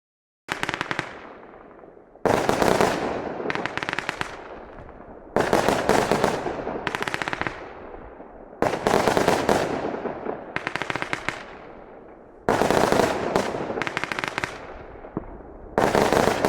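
A 49-shot fan cake firework firing in volleys: six bursts of rapid sharp shots about every three seconds, each fading away before the next.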